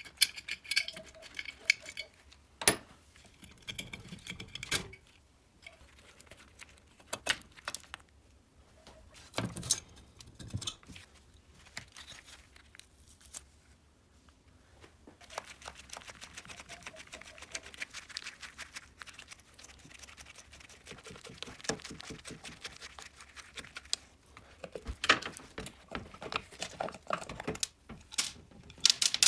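Metal clinks, knocks and scraping of hand tools and loose engine parts while an old Riga 12 moped's two-stroke engine is dismantled: the cylinder head and cylinder come off their studs and the side cover is taken off. Sharp single clinks are scattered throughout, with a stretch of fast rattling through the middle.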